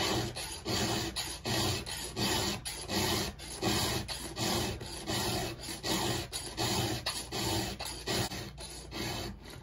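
Hand round file rasping across the cutters of a chainsaw chain, sharpening it, in short even strokes about two a second.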